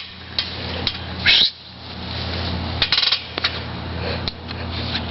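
A sleeping man snoring in slow, long breaths, with a few light clicks and knocks and a short sharp noise about a second in.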